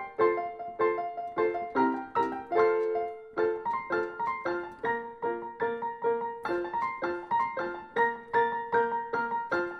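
Background piano music: a light melody of evenly struck notes, about three a second.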